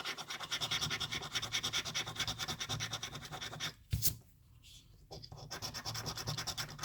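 Scratching the coating off an instant lottery scratch-off ticket in quick, continuous strokes. About four seconds in the scratching stops for a second or so, with a single tap, then starts again.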